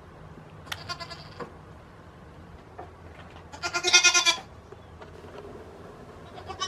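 Goat bleating: a short bleat about a second in, then a louder, longer one about four seconds in, and another beginning near the end.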